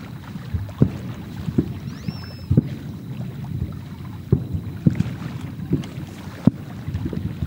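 Aerial firework shells bursting: about eight booms at uneven intervals over a steady rumble of wind on the microphone, with a brief high whistle about two seconds in.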